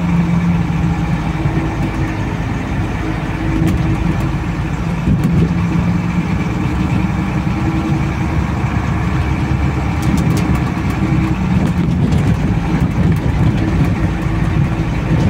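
Water-tanker truck's engine running steadily as it drives along a dirt road, heard from inside the cab, with a few short knocks about ten seconds in.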